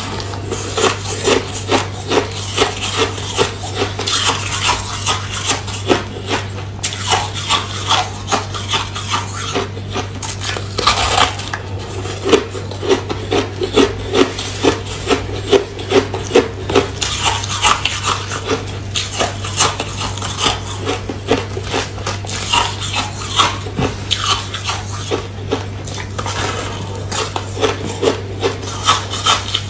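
Repeated crisp crunching of foamy, porous ice being bitten off a round slab and chewed, a steady run of sharp crackles.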